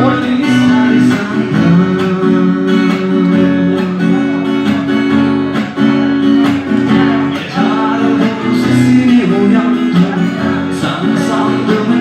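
Music: a song's instrumental passage led by a plucked and strummed acoustic guitar, with held notes underneath.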